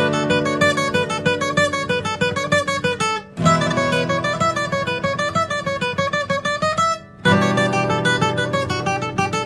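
Background music led by an acoustic guitar, plucked and strummed in a quick, even rhythm. It drops out briefly twice, about three seconds in and again about seven seconds in.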